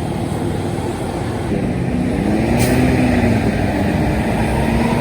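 A heavy road vehicle passing close by with its engine running, getting louder about a second and a half in, with a brief high hiss near the middle.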